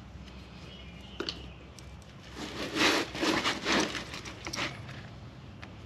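Handling noise: a light click about a second in, then a couple of seconds of irregular rustling and scraping as a hand-held work light is moved and set in place.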